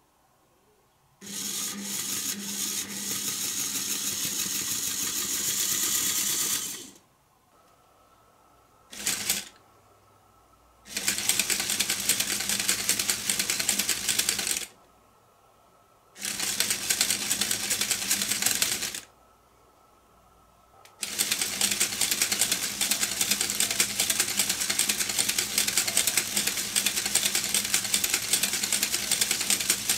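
Lego Technic mechanism driven by an electric motor: plastic gears and beams make a fast, dense rattling clatter over a steady low hum. It runs in four or five stretches of a few seconds each and stops in between.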